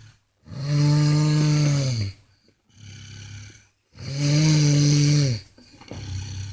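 A man snoring loud: two long snores about three and a half seconds apart, each a steady droning tone that drops in pitch as it ends, with a softer breath between them.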